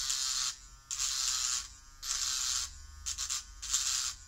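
Hypograph tattoo machine converted into a small rotary file, its motor humming steadily while the spinning dovetail burr rasps against a workpiece in about five short strokes, deburring an edge.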